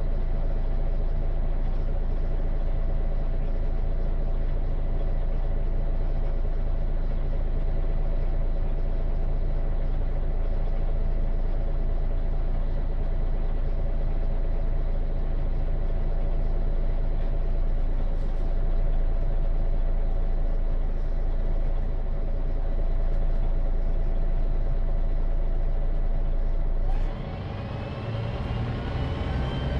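MAN NG313 articulated bus's D2866 LUH24 straight-six diesel idling steadily, heard from inside the passenger compartment while the bus stands still. Near the end the engine note changes and a rising whine comes in as the bus pulls away.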